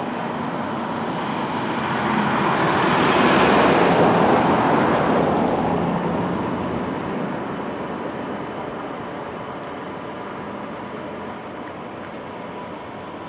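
A large road vehicle driving past on the road. Its engine and tyre noise swells to its loudest about four seconds in, then fades slowly away.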